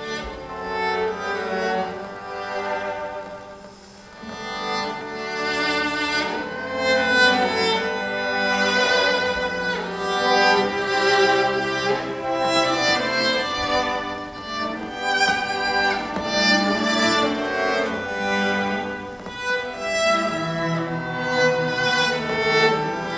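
Ensemble of cellos playing together, bowed notes held and swelling, with a short quieter passage about four seconds in.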